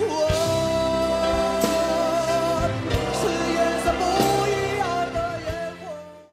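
Background music: a song with a sung melody over sustained instruments and drum hits, fading down at the end.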